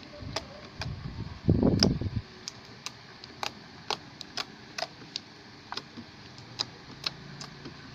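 Homemade glue slime being squeezed and worked by hand, giving irregular small clicks and pops. A brief burst of voice about a second and a half in.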